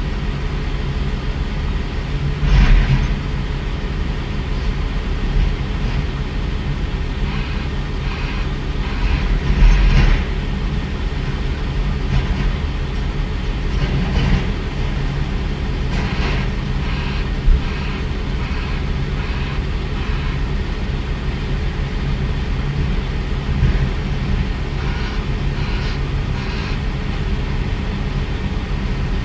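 Heavy diesel earthmoving machinery running with a steady low rumble, as a Komatsu WA600 wheel loader works a rock pile. There are brief louder moments about 3 and 10 seconds in, and shorter ones later.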